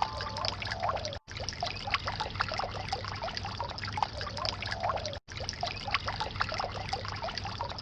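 Water trickling and splashing in a concrete garden water feature: a steady patter of small splashes as the water falls into its trough. The sound breaks off briefly twice.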